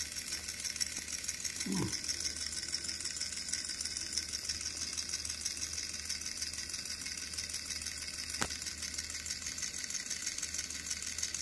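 Small geared motor of a novelty dog toy clipped to a power cord, rattling steadily in a fast, even tick. A short falling squeak comes about two seconds in, and a single click near the end.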